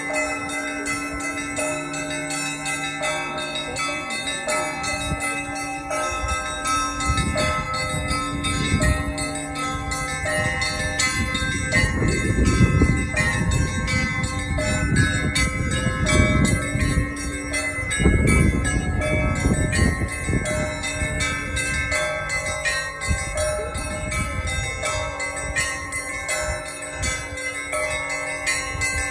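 Orthodox church bells pealing: many small bells struck rapidly over a wash of sustained ringing tones, with a low rumble swelling and fading through the middle.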